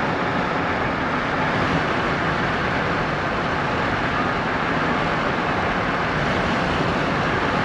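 Steady road noise inside a moving vehicle's cabin: tyres and engine running at highway speed.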